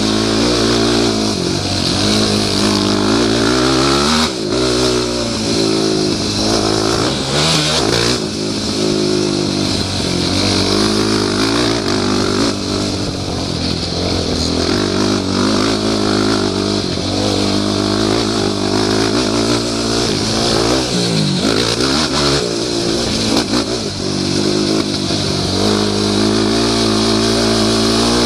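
Yamaha YFZ450 quad's single-cylinder four-stroke engine under hard riding, revving up and down again and again as the rider shifts and brakes for turns and gets back on the throttle.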